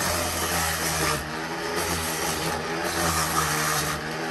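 Electric grinder with a sanding pad running steadily while it abrades a concrete fountain's surface: a steady motor hum over the hiss of abrasive paper on concrete.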